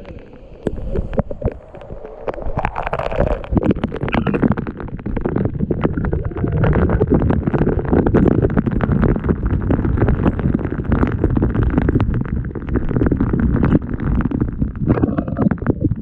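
Waterfall pouring straight onto an action camera: a loud, dense rush of falling water with constant drops hitting the camera, growing louder a couple of seconds in.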